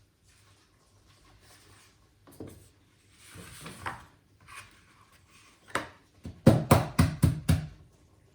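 Kitchen handling sounds: a little rustling, then a quick run of sharp knocks near the end, about four a second, like hard objects striking a work surface.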